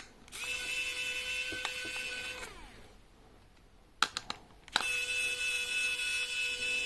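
Small electric screwdriver motor running twice, a couple of seconds each, backing out two small phone screws; the first run winds down with a falling pitch as it stops. A few light clicks come just before the second run.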